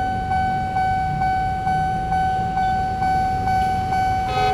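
Railway level-crossing warning alarm ringing steadily: one tone repeated in quick strokes, about four to five a second, with a low rumble underneath. A brief horn toot comes near the end.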